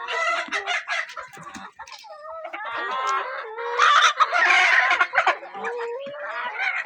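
Hens clucking and calling in a series of short calls, with one long, loud call about four seconds in.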